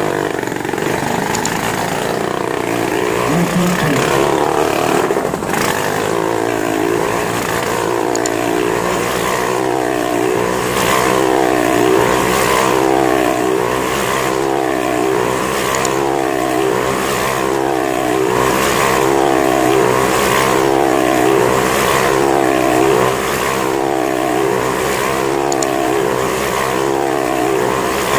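Motorcycle engines running hard inside a steel mesh globe of death, their pitch rising and falling in a steady wave about once a second as the bikes loop round the globe.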